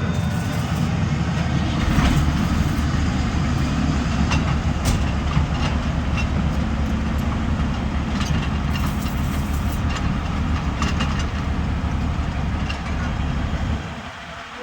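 Hyundai 215 excavator's diesel engine running steadily with a low rumble, with occasional sharp clanks over it, typical of loading onto a trailer. About a second before the end the engine sound drops away.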